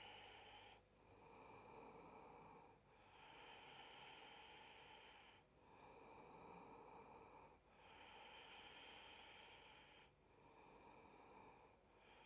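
Faint, slow, paced breathing of a person holding a yoga pose: about five breaths, each lasting two to three seconds, with short pauses between them.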